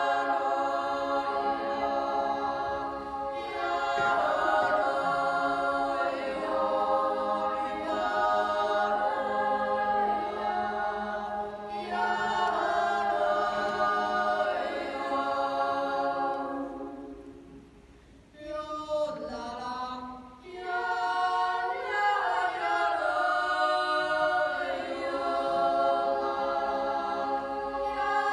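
Children's yodel choir singing a Toggenburg Naturjodel, a wordless yodel in sustained multi-part chords. About two-thirds of the way through, the chords fade to a brief pause. A few voices then start the next phrase before the full choir joins again.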